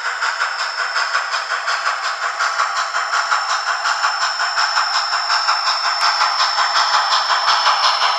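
SoundTraxx Tsunami2 sound decoder in an HO scale N&W Z1a 2-6-6-2 model playing simulated steam locomotive exhaust through the model's small speaker: rapid, even chuffing with hiss, growing slightly louder, with a few sharp clicks near the end.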